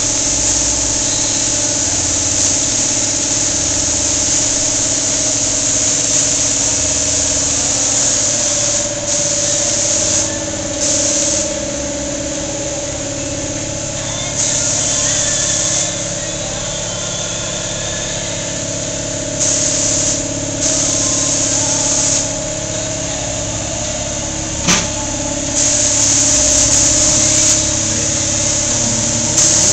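A steady mechanical hum with hiss over it, the hiss growing stronger in stretches of a second or two. One sharp click comes late on.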